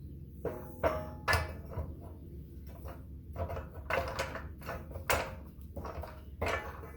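Steel pipe being handled and fed into a Greenlee pipe bender: a string of knocks and clanks, a few with a brief metallic ring.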